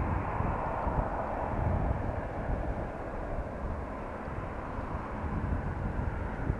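Jet noise from a Boeing 737-800's two CFM56 turbofan engines during takeoff: a steady rushing noise with a deep rumble, fullest in the first couple of seconds.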